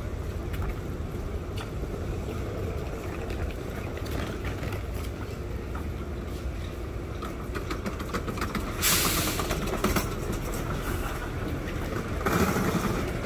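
Street traffic rumbling steadily, with two short loud hissing bursts about nine and twelve seconds in.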